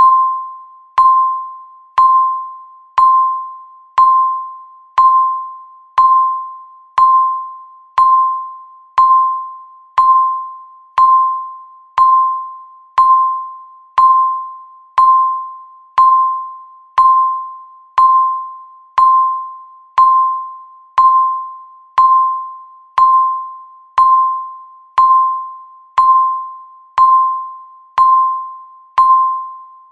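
Countdown timer beep: a single mid-pitched electronic tone sounding once a second, each beep sharp at the start and fading away before the next, marking each second left on the countdown.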